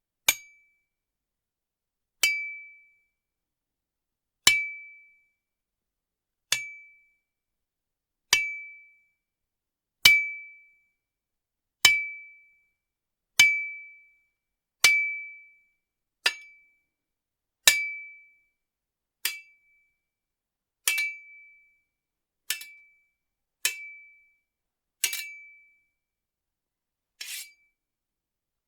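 Sword sound effects: a series of sharp metal blade clinks, each ringing briefly at one high pitch and fading out. There are about sixteen of them, one every one and a half to two seconds, with dead silence between.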